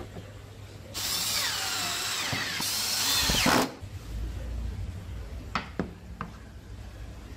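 A handheld power tool runs under load on wood for about two and a half seconds, starting and stopping abruptly, with a brief break partway through. A few light knocks of wooden pieces follow.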